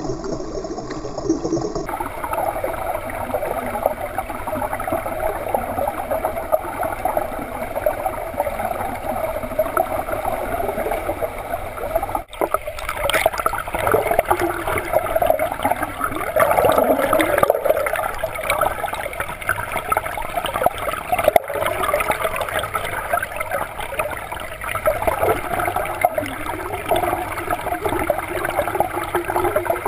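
Pool water churning and bubbling as a swimmer's front-crawl arm strokes and kicks stir it, heard from underwater as a steady rushing, with two momentary breaks.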